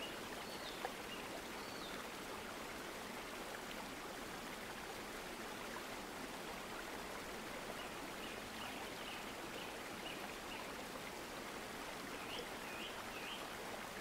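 Steady faint hiss of background noise, with a single faint click about a second in and a few faint high chirps in the second half.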